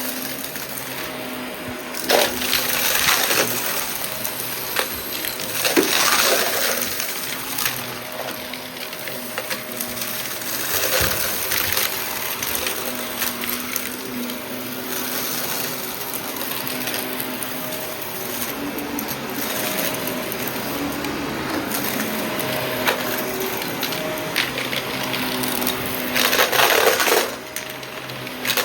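Shark vacuum cleaner running and sucking up a small mess of scattered debris, which crackles and rattles up through it in bursts. The loudest bursts come a couple of seconds in, around six seconds in, and near the end.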